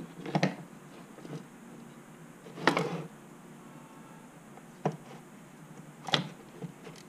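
Plastic parts of a Poulan 2000 chainsaw being handled as its recoil starter housing is fitted back onto the saw: a few short, sharp clicks and knocks, with one longer rustling scrape about two and a half seconds in.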